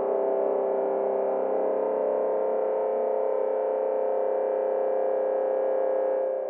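A sustained synth pad chord from the Hybrid Head Crusher sample library in Kontakt, held steady with a slight wavering shimmer, beginning to fade away at the very end as the notes are released.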